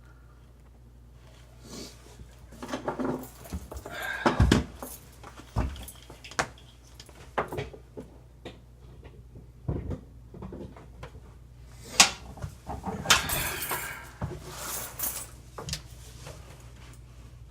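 Scattered knocks, clanks and scraping as sink drain parts are handled and worked on by hand, with sharp knocks about four seconds in and about twelve seconds in.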